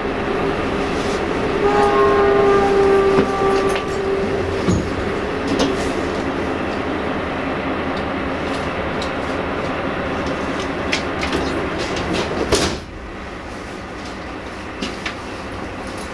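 Diesel-hauled passenger train running, heard from its rear carriage: steady rumble of wheels and carriage, with a horn blowing one held note for about two and a half seconds near the start. A sharp bang about twelve seconds in, after which the running noise is quieter.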